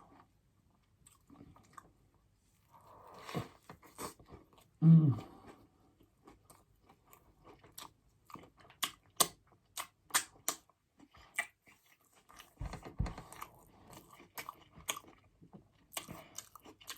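Close-up chewing and crunching of a chicken burger: a string of short crisp crunches and mouth clicks, with a brief low hum of the voice about five seconds in.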